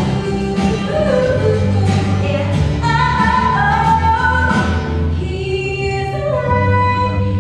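A Christian song playing: singing voices carrying a melody over a steady instrumental backing.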